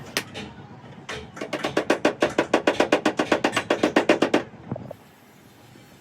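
A rapid, even run of sharp knocks, about eight a second, lasting about three seconds and then stopping, with a single knock before it.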